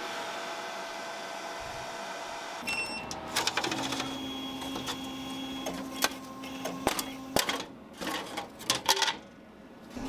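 A laser cutter hums steadily at first. From about three seconds in comes a run of sharp clicks and knocks, as thin laser-cut wood pieces are popped out of the cut sheet and handled, loudest near the end.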